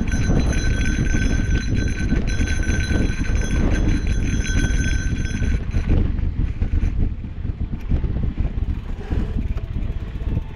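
Mountain bike rolling over dirt singletrack: heavy low rumble of wind on the microphone and the tyres on the trail, with irregular rattles and knocks from the bumpy ground. A steady high-pitched whine runs over it for the first half and stops about six seconds in.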